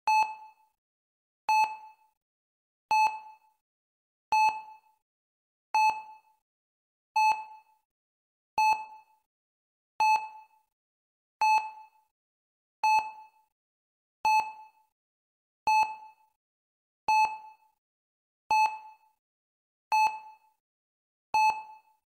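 Heart rate monitor beeping steadily, one short beep about every second and a half, each beep marking a heartbeat.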